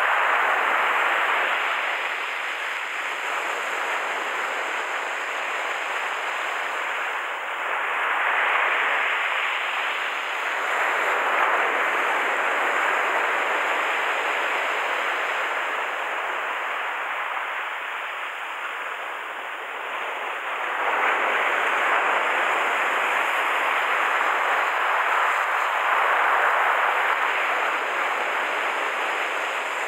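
Surf washing up the beach and draining back, a steady hiss that swells and eases as each wave comes in every several seconds.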